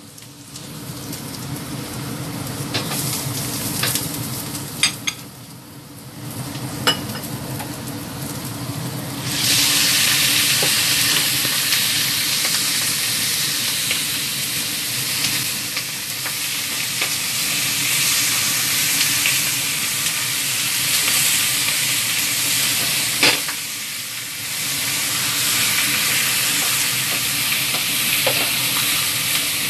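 Garlic and onion frying in oil in a wok, with a few sharp taps of a metal spatula. About nine seconds in, a loud sizzle starts suddenly as raw chicken pieces go into the hot oil; it keeps sizzling as the chicken is stirred, easing off briefly about two-thirds of the way through.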